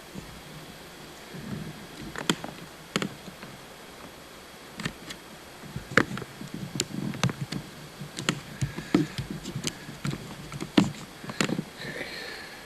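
Irregular light clicks and taps, some sharper than others, scattered through with soft low thuds.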